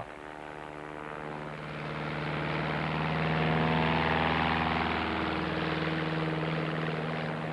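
Light single-engine propeller aeroplane's piston engine running steadily, growing louder over the first three seconds or so as power is increased for the climb.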